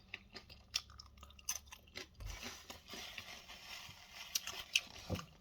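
Close-up chewing and crunching of microwaved tortilla-chip nachos topped with melted cheddar and salsa: a run of faint, irregular crunches.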